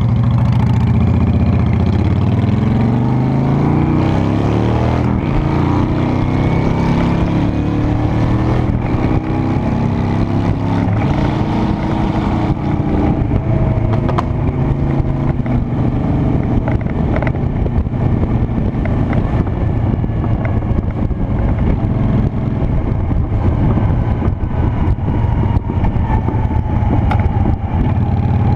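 Honda Shadow Spirit 750's V-twin engine accelerating, its pitch rising in several steps over the first dozen seconds as it works up through the gears, then running steadily at cruising speed.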